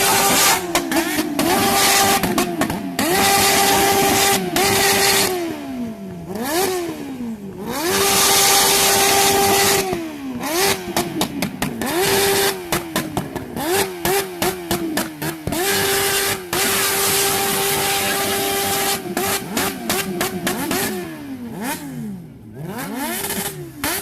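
Motorcycle engine revved hard against its rev limiter: it holds flat at the cut-out for a second or two at a time, drops off and is blipped back up to the limiter over and over.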